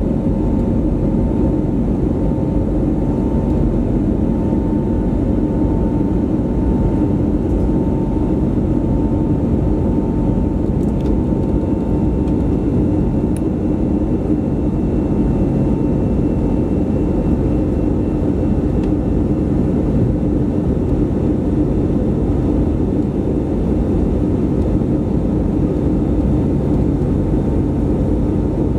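Cabin noise of an Airbus A320neo climbing after takeoff, heard from a window seat beside its Pratt & Whitney PW1100G geared turbofan. A steady engine roar carries a low hum and a higher whine, and the whine fades out about halfway through.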